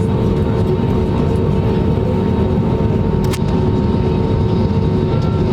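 Cabin noise of an Airbus A320neo with its engines running: a loud, steady rumble with steady humming tones, and a single click about three seconds in.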